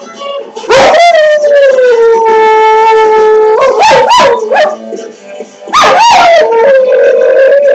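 Dog howling in long pitched notes: a held howl that slides slowly down in pitch, then a few short wavering yelps about halfway through, then a rise into another held howl near the end.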